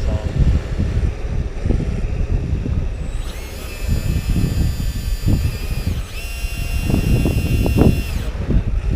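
Motor of a homemade RC backhoe loader whining in two long runs, the first starting about three seconds in, each rising briefly in pitch as it spins up, with a short break near the middle. Low rumble of wind buffeting the microphone throughout.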